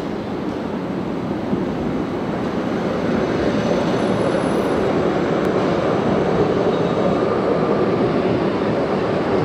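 Tram rolling along rails set in a cobbled street, passing close by, mixed with a car's tyres on the cobblestones: a steady rumble that grows gradually louder as the tram draws near.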